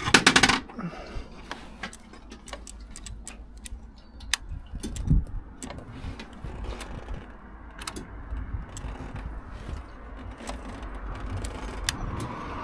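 Handling noises: a short loud burst at the start, then scattered light metallic clicks and jangling over a low rumble, with a dull thump about five seconds in.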